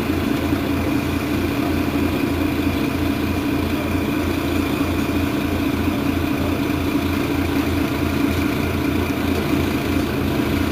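Mercedes-Benz Citaro Facelift city bus's diesel engine idling steadily while the bus stands at a stop.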